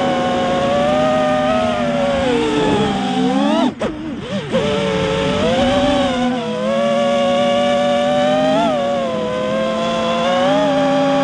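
FPV quadcopter's electric motors and propellers whining, the pitch rising and falling with the throttle. About three seconds in the whine drops, dips briefly as the throttle is chopped, then climbs sharply as it is punched again, and it swells a few more times after that.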